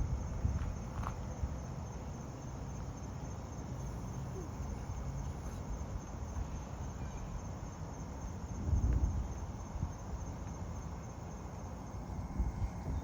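Rainforest insects keeping up a steady high-pitched pulsing chorus, over low rumbling noise that swells briefly about nine seconds in.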